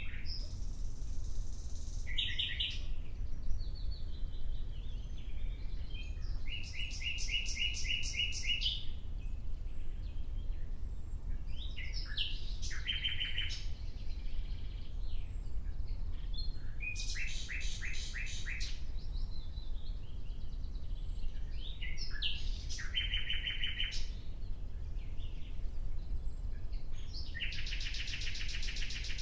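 Nightingale singing in separate phrases of two to three seconds, about one every five seconds, each built of fast repeated notes and high whistled notes. A steady low rumble runs underneath.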